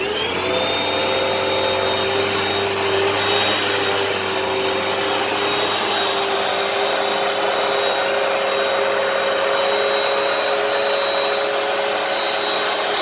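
Hoover PowerDash carpet cleaner switching on, its motor whine rising in pitch for a moment as it spins up. It then runs steadily with a high whine over an even rush of suction.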